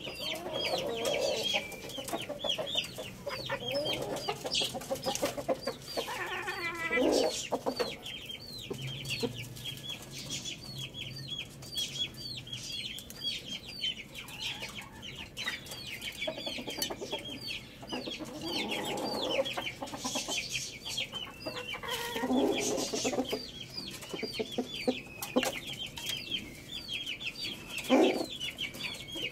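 Chickens clucking in short, low calls, several times, the loudest near the end, over a steady stream of high, short chirps at about three a second.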